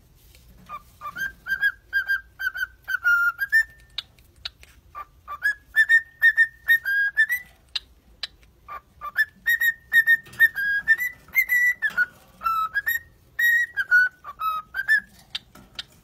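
Cockatiel whistling a tune: phrases of short, clear whistled notes, mostly held level with small steps up and down, separated by brief pauses.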